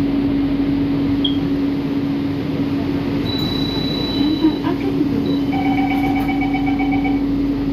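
Metro train car standing at a platform with a steady electric hum. About three seconds in a high warning tone sounds, then a run of quick beeps as the sliding doors close.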